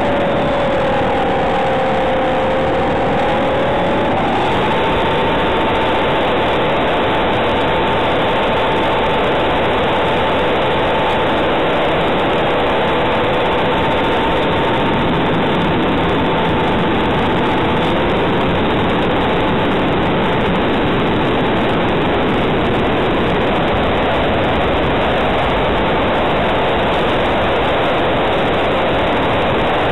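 Aircraft in flight heard through its onboard camera: a constant loud rush of airflow over the microphone with a steady motor-propeller hum. The hum sags in pitch over the first few seconds, steps up about four seconds in, and then holds even.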